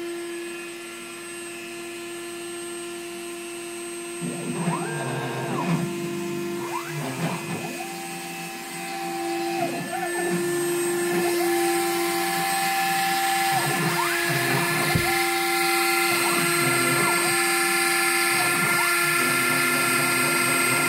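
A Dremel rotary tool running with a steady whine. From about four seconds in, the stepper motors of a DIY Solsylva CNC router join it as the machine drives its axes to cut insulation foam: whines that glide up and down as the axes speed up and slow down, alternating with steady pitched runs.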